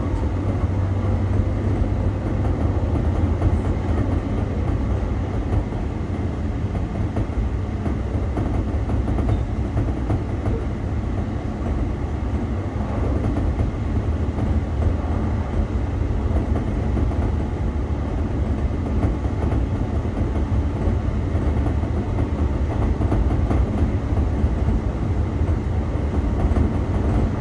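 JR Shikoku 1000 series diesel railcar running along the line at steady speed: a continuous low diesel engine drone with wheel-on-rail running noise, heard from the front of the cab.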